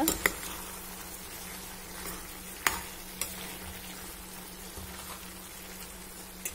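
Steel spoon stirring soft-cooked pumpkin pieces in a stainless steel pan over a steady low sizzle, with a few sharp clicks of the spoon knocking against the pan, the loudest about two and a half seconds in.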